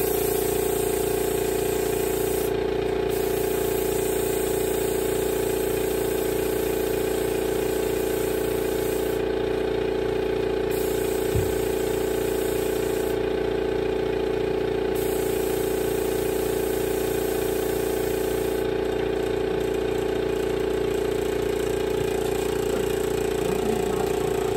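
Air compressor running steadily behind a spray-painting job, a constant machine drone that holds one pitch with no change in level. A single light knock about eleven seconds in.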